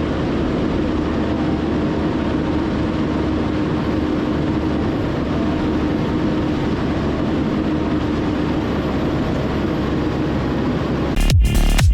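John Deere 450K LGP bulldozer's diesel engine running steadily, an even drone with a faint steady hum over it. Electronic dance music with a heavy beat cuts in near the end.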